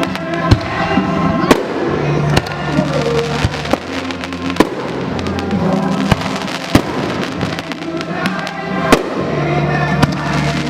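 Aerial fireworks going off, about nine sharp bangs at irregular intervals, over continuous music.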